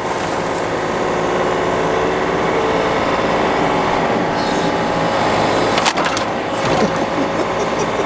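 Mini excavator's diesel engine running steadily with its hydraulics whining under load, and a single sharp knock about six seconds in.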